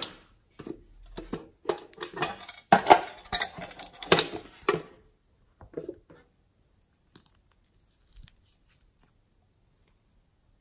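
Small plastic containers handled close up: a run of clicks and crackles for about five seconds, then a few faint clicks, and near silence toward the end.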